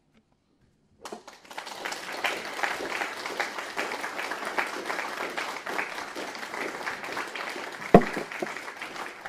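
Audience applauding, starting about a second in after a short silence, with a single sharp knock near the end.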